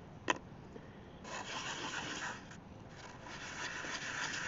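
An epoxy resin domino being wet-sanded by hand on 400-grit sandpaper in a circular motion: a gritty rubbing that starts about a second in, breaks off briefly, and carries on. A single sharp click comes just before the rubbing starts.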